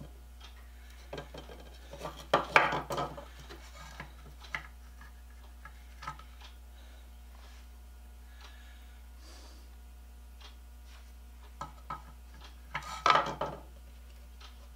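Hard plastic drill-handle housing and wires being handled against a metal motor on a wooden workbench: scattered clicks, knocks and rubbing, with two louder clatters about two seconds in and near the end, over a faint steady low hum.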